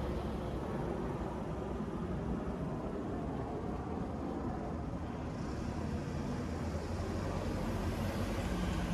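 Street traffic: a motor vehicle's engine rumbles steadily, and about halfway through tyre hiss joins it and grows louder as a vehicle draws closer.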